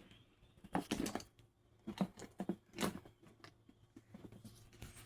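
Hands rummaging through a box of small toys: a string of irregular rustles, knocks and crinkles.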